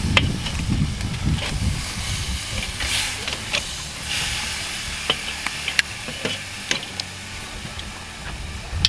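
Beef tenderloin sizzling as it sears over hot charcoal, a steady hiss with scattered sharp pops and crackles.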